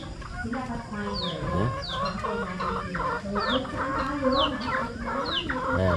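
A farmyard flock of chickens and helmeted guineafowl clucking and calling, with short high falling chirps repeating about once a second.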